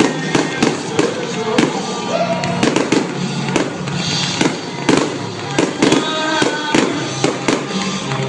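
Fireworks going off in quick, irregular bangs, often several a second, over background music.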